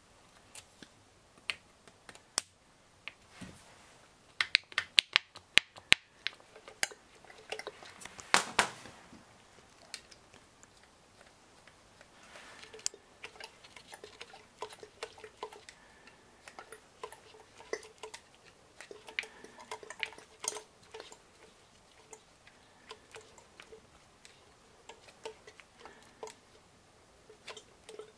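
Small metal clicks and clinks from circlip pliers and parts being fitted at the oil pump gear of a Yamaha XT600 engine: a quick run of sharp clicks about four to six seconds in, a louder scrape near eight seconds, then lighter irregular ticking as the gear is handled.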